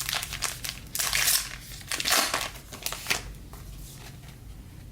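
A trading-card pack wrapper crinkling as it is handled, in a quick run of rustles over about three seconds, then quieter.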